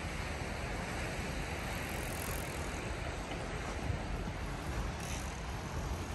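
Steady outdoor rushing noise with wind buffeting the microphone.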